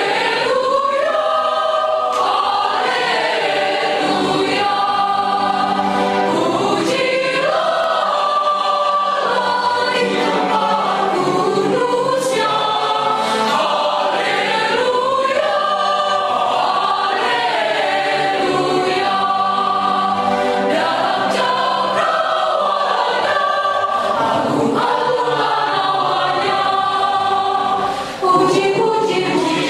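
Mixed choir of young men and women singing together, continuous and full. A brief drop about 28 seconds in, after which the singing carries on.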